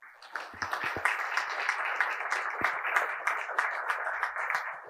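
Audience applauding: many hands clapping in a dense, steady patter that begins suddenly and eases off slightly near the end.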